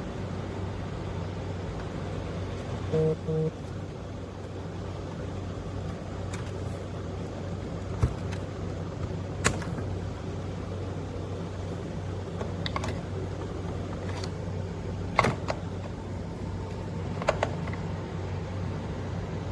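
Steady low hum like a car interior on the move, with a short double beep about three seconds in and a few sharp clicks scattered through the rest.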